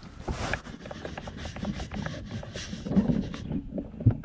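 Camera handling noise: irregular rubbing and scraping with small knocks against the camera as it is moved, with a sharper knock near the end.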